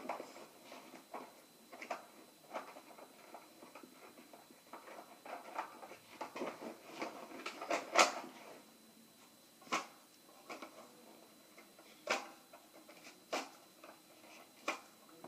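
Plastic clicks, knocks and rattles of a Nerf Demolisher blaster being handled while a jammed dart is cleared, with one sharper click about halfway through and a few spaced clicks after it.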